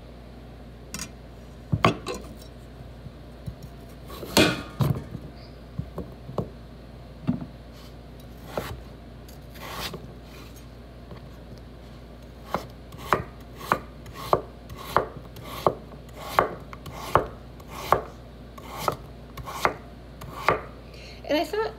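Kitchen knife chopping a peeled potato on a wooden cutting board: scattered knocks at first, then a steady run of cuts, about one and a half a second, from about halfway through.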